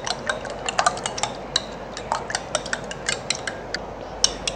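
Metal spoon beating raw eggs in a glass bowl: quick, irregular clinks of the spoon against the glass, several a second, with a brief pause near the end.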